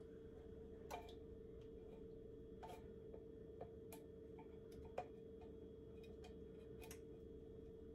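Faint, scattered clicks and taps of a small spatula knocking and scraping inside a metal can as soup is worked out into a pot, about six in all at uneven intervals, with the loudest about five seconds in. A steady faint hum sits underneath.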